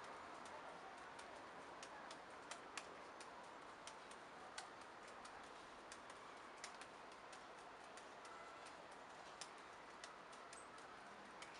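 Faint clicks of juggling balls landing in the hands during a five-ball 645 pattern, irregular, about two or three a second, over a light steady hiss.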